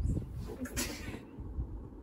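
Muffled handling bumps and rustling close to a phone's microphone, with a short hiss just under a second in.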